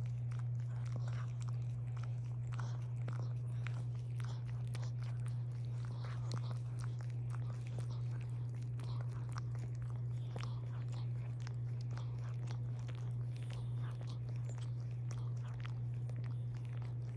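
A dog licking and nibbling at another dog's ear and head up close: many short wet smacks and small clicks, over a steady low hum.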